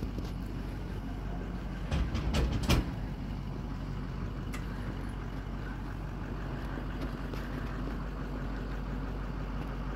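Steady low mechanical hum, with a few short knocks about two to three seconds in.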